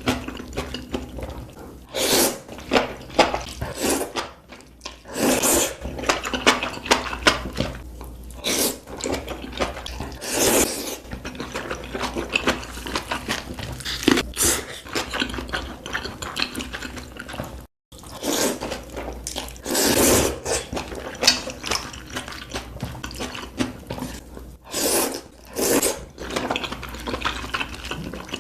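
Close-miked eating sounds from a hotpot meal: wet chewing, slurping and smacking in short bursts, with many crisp clicks. The sound cuts out abruptly for a moment about 18 seconds in.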